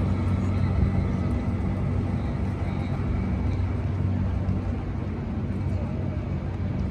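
Outdoor crowd ambience across a large stone plaza: faint background voices over a steady low hum.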